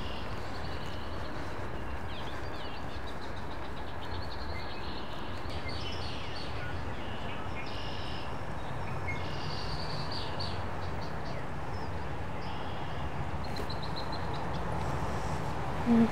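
Outdoor ambience of small birds chirping and singing in short phrases over a steady low rumble.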